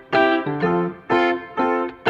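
Background music: a plucked, guitar-like instrument playing repeating chords in a steady bouncy rhythm, about two to three notes a second.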